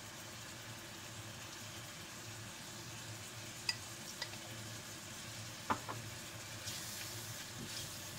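Mushrooms and onions sizzling gently in a frying pan, with a few light taps of a utensil against the pan and jar around the middle. A spatula stirring and scraping through the pan near the end.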